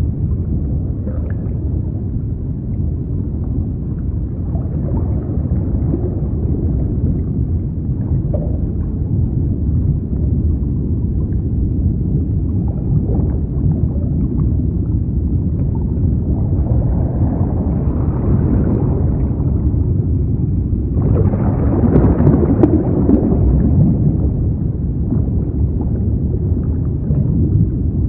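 Underwater ocean ambience: a steady low rumbling wash with gurgling. It swells louder about two-thirds of the way through, then again more suddenly a few seconds later.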